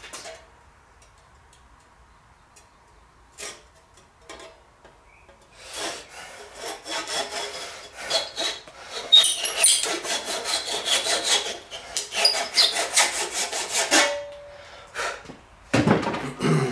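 Handsaw cutting the protruding wooden wedge and handle end flush with the top of an axe head, in a run of quick back-and-forth strokes that starts about six seconds in and stops around fourteen seconds. A heavier knock follows near the end.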